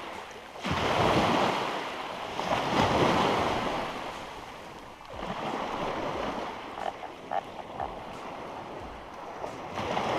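Small surf breaking and washing up a sandy beach, rising and falling in several surges, with wind on the microphone.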